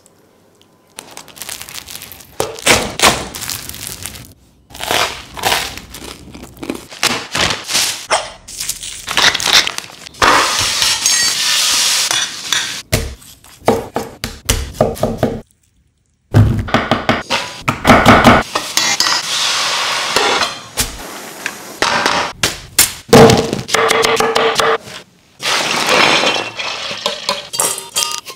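Cooking sounds cut one after another: knife strokes, knocks and thunks of food and utensils on a wooden cutting board, and metal pans and bowls clinking, with stretches of steady sizzling from pork chops and vegetables frying in a hot pan.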